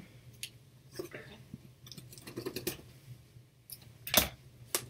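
A cardboard shipping box being cut open with a blade: faint scraping and scattered small clicks as the packing tape is slit. Two sharper knocks against the box come about four seconds in and just before the end.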